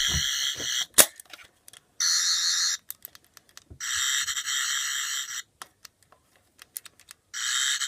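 Toy sonic screwdriver's electronic buzzing sound effect from its small speaker, switched on and off by button clicks. It stops just after the start, then sounds in three more short bursts with clicks between them, the sharpest click about a second in.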